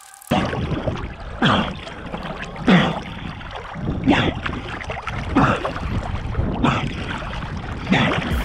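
Water splashing in a steady rhythm of swimming strokes, about one stroke every second and a quarter, over a continuous wash of water noise. It starts abruptly just after the beginning.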